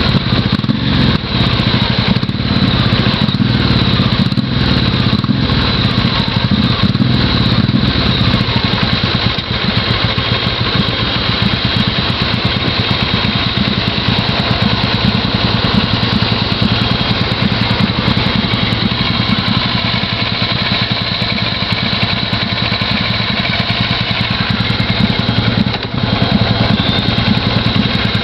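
Motorcycle engine running steadily, heard from the bike itself while riding and slowing at a junction, with irregular surges in the first several seconds.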